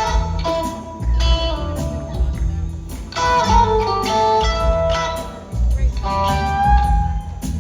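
A live trio of electric guitar, bass and drums playing an instrumental passage with no vocals. The guitar plays held single notes over a steady bass line and drums, recorded on a phone's microphone in the audience.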